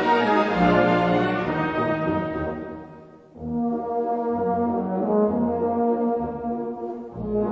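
Orchestral music led by brass, with sustained horn-like chords; a phrase dies away about three seconds in and the brass comes back in.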